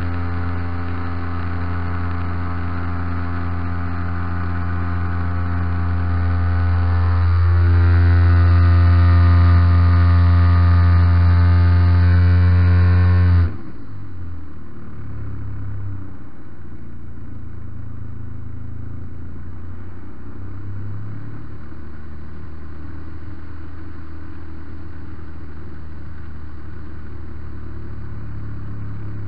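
MVVS 116 two-stroke petrol engine of a large radio-controlled Piper J-3 Cub tow plane, heard from on board, running at full power with a glider on tow, growing a little louder and higher about seven seconds in. About halfway through it is throttled back abruptly, the pitch dropping, as the glider is released, and it then runs at a low, wavering idle.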